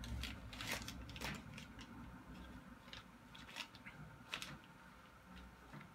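Quiet handling noise: a handful of faint, sharp clicks and soft rustles scattered through, over a low steady hum.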